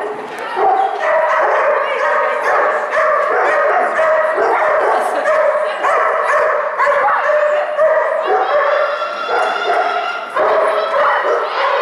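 Dogs barking and yipping over and over, almost without a break, in a large indoor hall.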